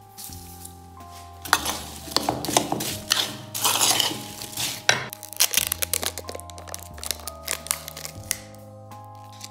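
A spoon stirs diced apple and sugar in a wooden bowl, making a run of quick clicks and scrapes that starts about a second and a half in and lasts some three seconds. Background music with sustained notes plays throughout.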